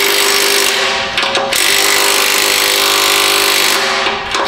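Cordless impact wrench hammering exhaust clamp nuts tight on a new muffler, in long runs with short pauses. One run ends under a second in, the next goes from about a second and a half to nearly four seconds, and another starts at the very end.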